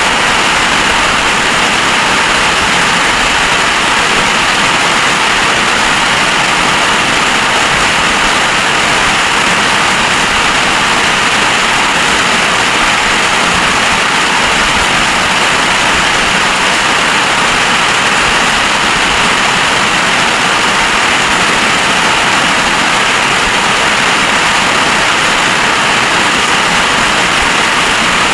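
Heavy storm rain pouring down, a loud, steady, unbroken rush.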